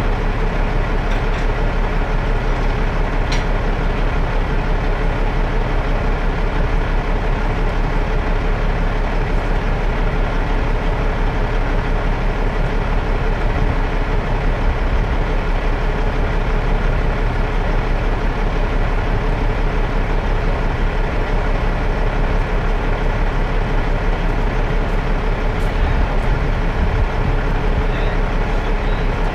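Diesel engine of a Peterbilt heavy-duty rotator wrecker running steadily at a constant speed, loud and close. A couple of faint clicks come over it.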